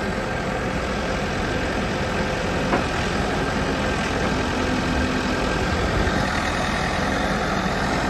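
A JCB 214 Series 3 backhoe loader's four-cylinder diesel engine idling steadily.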